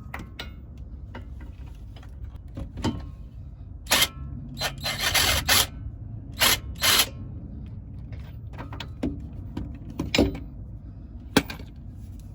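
Hand tool loosening the 17 mm brake caliper bolts: irregular metal clicks and clanks, with a short rattling run about five seconds in.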